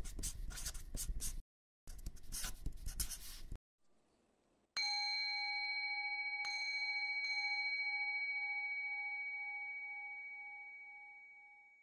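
Two scratchy strokes of writing on paper, each about a second and a half long. Then, about five seconds in, a bell is struck once and rings with a clear, slightly wavering tone that dies away slowly, with two faint ticks early in the ring.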